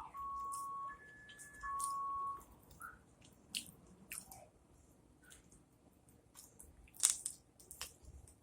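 Car alarm sounding steady electronic tones, one pitch, then a higher one, then the first again, stopping about two and a half seconds in. After that come close eating sounds: biting, chewing and small crunches, with one sharp click about seven seconds in.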